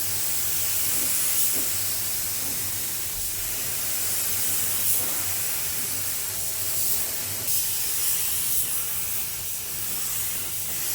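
Paint spray gun hissing steadily with compressed air as black non-sanding primer is sprayed, with a faint low hum underneath.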